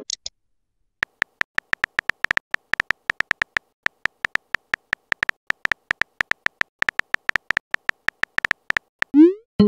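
Simulated phone-keyboard key clicks from a texting-story app, one short tick per letter typed, about six a second. Near the end comes a rising swoosh and a short chime as the typed message is sent.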